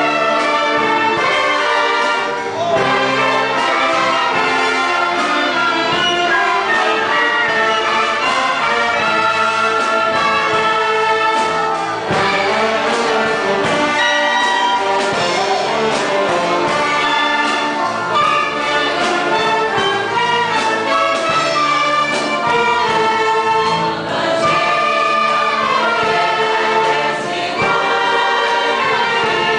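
Church choir singing a hymn with a wind band of flutes, clarinets, trumpets and sousaphone, loud and steady with short breaks between phrases.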